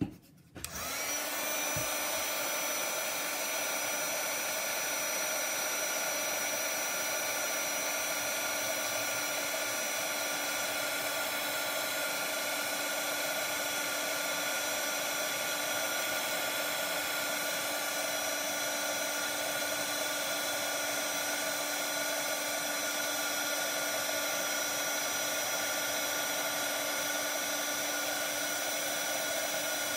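Embossing heat tool switched on about half a second in and running steadily: a fan whir with a faint, even whine, as it melts embossing powder on stamped cardstock.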